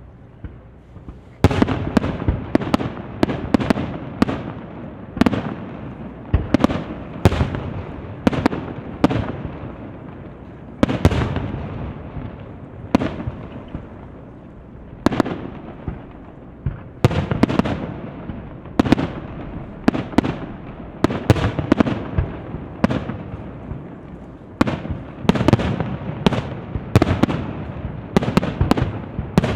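Fireworks display: a starmine of aerial shells bursting in quick succession, dozens of sharp booms, each trailing off in an echo. The barrage starts about a second and a half in.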